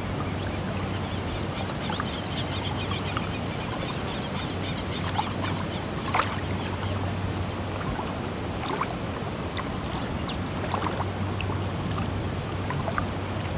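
Calm small waves lapping at a shore: a steady wash of water with scattered small splashes and ticks. A run of quick high chirps sounds in the first few seconds and again near the end.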